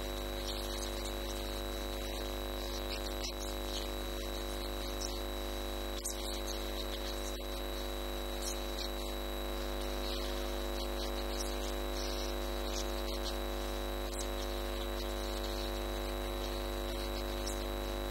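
Steady electrical hum made of several even, unchanging tones, with faint scattered ticks and clicks over it.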